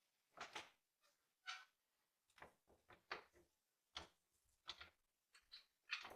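Faint, irregular knocks, clinks and scrapes of the rusted vintage scale's metal parts being handled, about ten separate short sounds.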